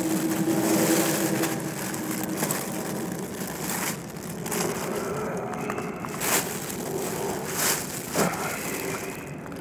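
Black plastic bin bag rustling and crinkling as it is handled, with a few sharp crackles in the second half. A steady low tone fades out over the first couple of seconds.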